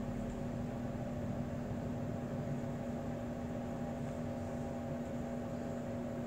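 Steady room hum: a constant low drone with a few fainter steady tones above it over even background noise, unchanging throughout.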